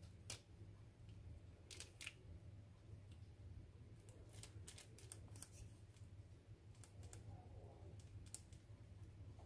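Near silence: a dozen or so faint, irregular clicks and taps of a pastry brush dabbing egg yolk onto croissant dough on a parchment-lined baking tray, over a low steady hum.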